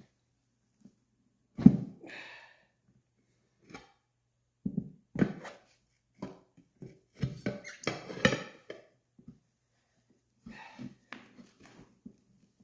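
New knobby ATV tire being forced onto a metal wheel rim: irregular thumps, knocks and rubbing of soaped rubber against the rim as the stiff sidewall is worked over the edge, with a sharp thump about a second and a half in.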